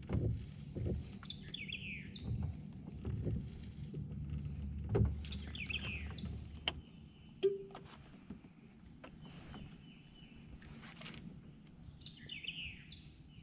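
A bird sings the same short falling phrase three times, about every five seconds, over a steady faint high whine. Low knocks and rumbles of gear being handled in a small boat come in the first half.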